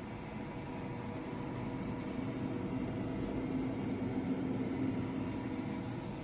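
A steady machine hum with a low drone, swelling slightly in the middle.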